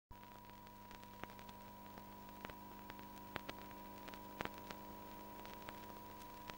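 Faint background noise of an old film soundtrack: a steady hum and hiss with irregular clicks and crackles, about one or two a second.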